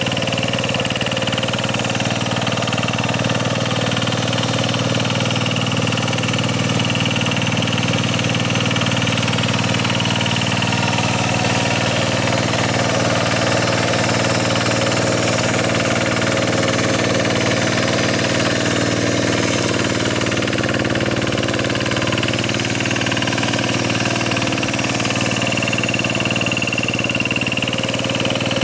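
Kubota single-cylinder diesel engine of a two-wheel hand tractor running steadily under load as its rotary tiller churns a flooded rice paddy.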